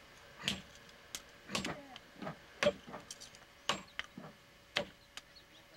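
Hand forging: a hammer striking a red-hot iron blade on a stone anvil. There are heavy blows at a steady pace of about one a second, with lighter taps in between.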